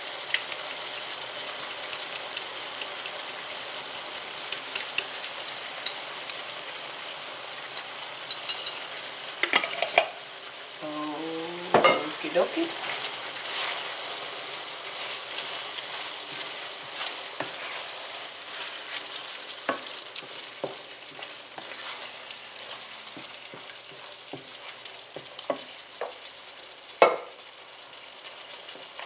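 Meat sauce sizzling and bubbling in a ceramic skillet while a wooden spoon stirs it, scraping and knocking against the pan in irregular clicks.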